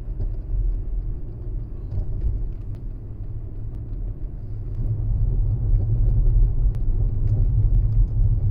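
Road and tyre rumble inside a Tesla Model S cabin while driving, growing louder about halfway through, with a few faint sharp clicks from a loose part rattling at the front right of the car.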